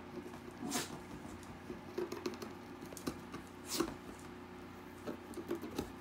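Paper rustling as a dog grabs and tosses it, with two brief, louder swishes about a second in and near four seconds, amid light clicks of paws on a parquet floor.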